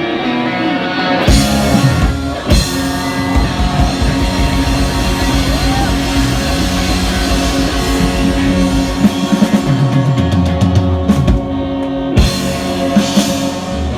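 Rock band playing loud rock music, a drum kit keeping the beat under held notes.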